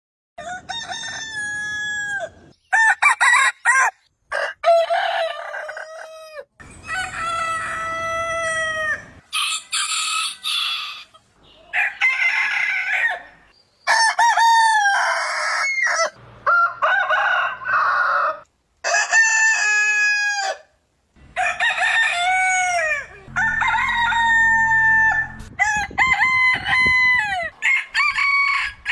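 Roosters crowing one after another, about a dozen drawn-out cock-a-doodle-doos from different birds, each cut off abruptly as the next begins.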